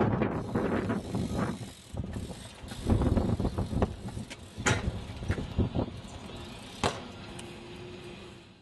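BMX bike ridden through flatland tricks on pavement: uneven tyre rumble and scuffing, with two sharp clicks from the bike in the second half. The sound fades out at the very end.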